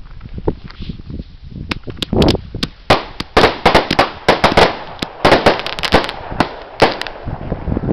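Small firework mortar shells bursting in the air: a few scattered cracks, then a rapid, irregular string of sharp bangs and pops from about two seconds in until near the end.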